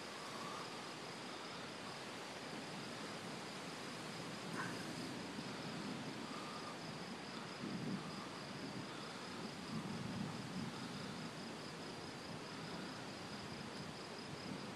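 Night insects chirping in a steady, high-pitched pulsing trill over a faint hiss, with a couple of soft low rumbles about eight and ten seconds in.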